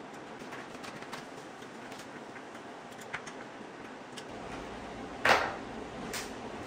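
Faint, irregular small clicks from the parts of a newly installed doorknob lockset as it is handled and checked for looseness. A louder short swishing knock comes about five seconds in, and a fainter one about a second later.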